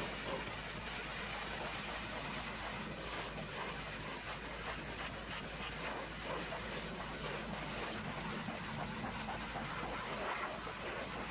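Pressure washer lance spraying a jet of water onto a truck's metal toolbox, a steady hiss of spray over a steady low hum.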